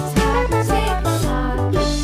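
Upbeat background music with a bass line and a bright melody.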